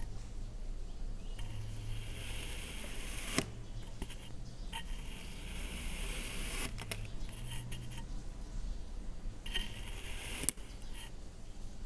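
Kinetic sand being cut with a blade: several stretches of crisp, gritty scraping, each ending in a sharp click, the loudest click about ten and a half seconds in.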